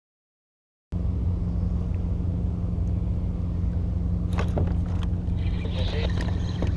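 Dead silence for about the first second, then a steady low mechanical hum with a few faint clicks.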